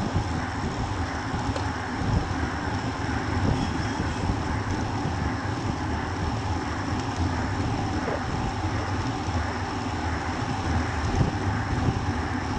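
Steady wind rush over the microphone of a bike-mounted camera on a road bike riding at about 32 km/h.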